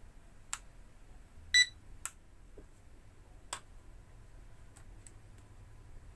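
A single short electronic beep about one and a half seconds in, among a few sharp clicks.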